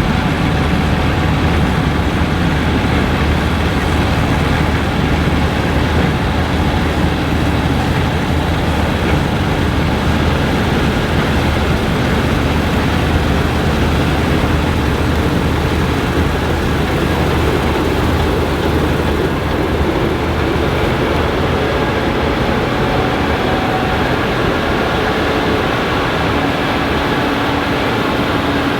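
Gleaner combine harvester running steadily under load while harvesting wheat: a constant engine drone with the dense rush of the threshing and header machinery.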